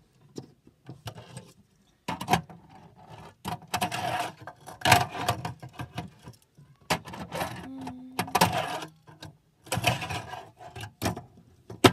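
Tech Deck fingerboard being ridden by hand on a plastic ramp: its small wheels roll and scrape, with an irregular string of sharp clacks as the board hits the ramp and table.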